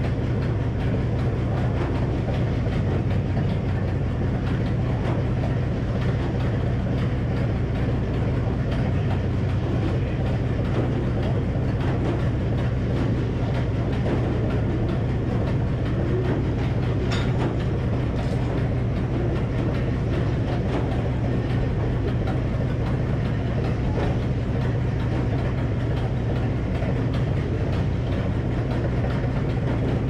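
Old Frick circular sawmill running, its power unit and spinning blade making a steady low drone with no rise or fall in load.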